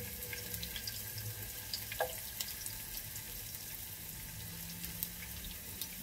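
Sliced ginger sizzling gently in hot oil in a pot: a steady hiss with faint scattered crackles, and one light tap about two seconds in.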